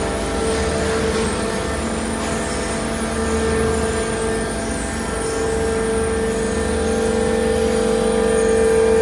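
Machinery of a bulky-waste shredding line running, with a chain-plate conveyor carrying sofas up to the shredder. It makes a steady mechanical hum with a held whine and grows slightly louder near the end.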